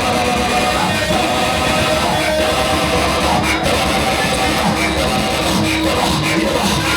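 Loud, steady band music led by guitar, with held chords.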